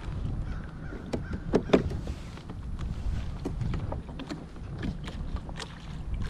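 Scattered light knocks and clicks on a plastic fishing kayak, over a low rumble of wind on the microphone.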